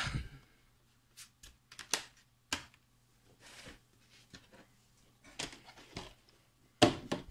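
Scattered clicks and light knocks of a DVD and its plastic case being handled, with a louder clatter near the end.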